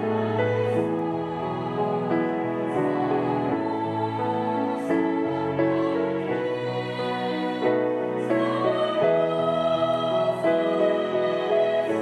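Women's choir singing a hymn with piano accompaniment.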